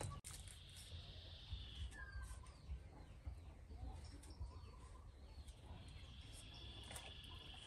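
Faint outdoor ambience: birds chirping and calling on and off over a low steady rumble.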